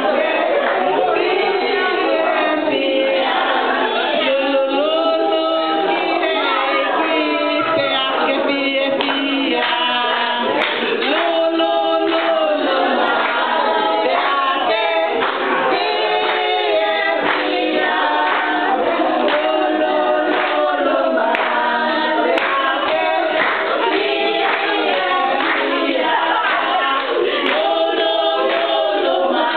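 A group of women singing together in chorus, one woman leading the song into a handheld microphone.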